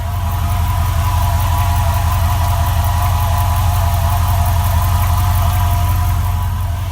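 2004 4.7-litre HO V8 engine idling steadily, with a faint regular tapping over the engine note. The owner hears the tap low at the rear of the engine and says it goes away once the engine reaches operating temperature.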